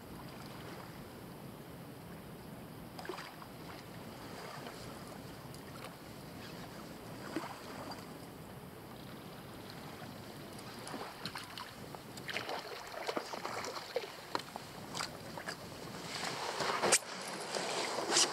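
Water lapping softly at a plastic kayak hull under a steady hiss of wind and water, with scattered light clicks and knocks from the fishing gear and hull. The clicks grow busier and louder in the last few seconds as a fish is fought on the spinning rod.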